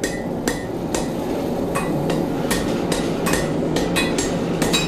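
Hot mild-steel rod being quenched in a barrel of water, the water churning as it is swirled with tongs. Steady water noise with many sharp, irregular metallic clinks that ring briefly.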